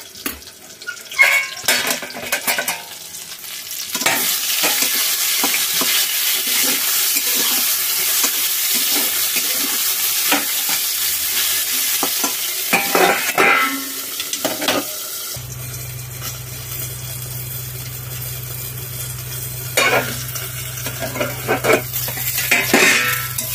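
Eggplant cubes frying in oil in a metal kadhai with a steady sizzle, while a metal spatula scrapes and knocks against the pan now and then as the pieces are turned. A steady low hum comes in about two-thirds of the way through.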